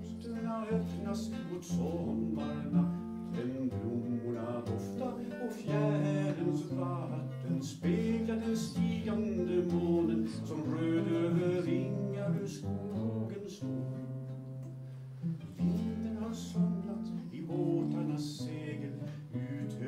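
Solo acoustic guitar playing an instrumental interlude of a waltz song, plucked melody over a moving bass line and chords.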